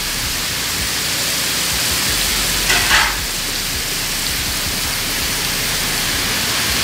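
Raw chopped beef sizzling steadily as it hits a hot flat-top griddle with onions and bacon. There is one brief louder scrape of the metal spatula about three seconds in.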